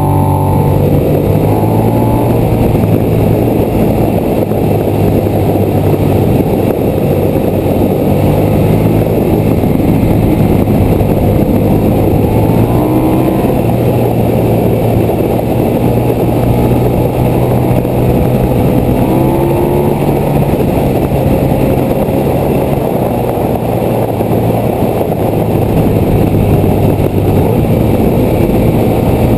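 Motorcycle riding at speed on a winding road: the engine runs steadily under a heavy rush of wind, and its note rises three times as the throttle opens coming out of bends.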